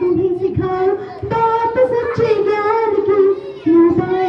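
A group of high voices singing a song together in unison, the melody moving between long held notes.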